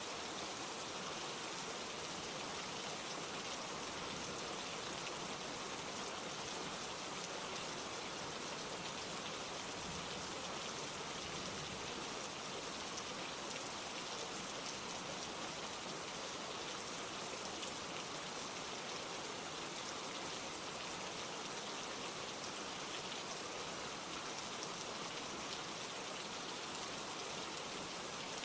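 Steady rain falling, an even hiss with fine patter of drops landing on surfaces.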